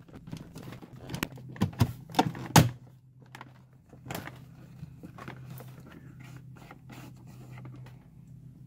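Plastic AC vent bezel being slid and pressed into its dashboard opening on a Mercedes ML350 (W164). A quick run of sharp plastic clicks and knocks comes over the first three seconds, the loudest at the end of that run, then a few fainter taps, over a steady low hum.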